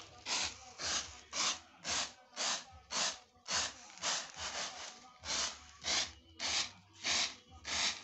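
Dried maize kernels being winnowed in a flat woven basket tray: each toss of the tray gives a short rustling rattle of grain, about two tosses a second.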